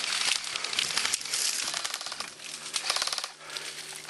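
Dry grass and brush crackling and crunching as bodies push through it, in two spells with a softer stretch between, with quick runs of fine ticks mixed in.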